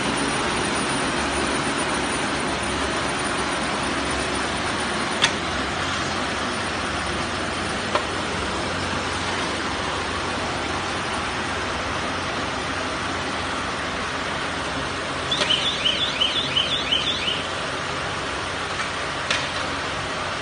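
Silage baler-wrapper machine running, a steady mechanical drone with a low hum. Occasional sharp clacks sound, and about two-thirds of the way through there is a short run of high squeaks, about four a second.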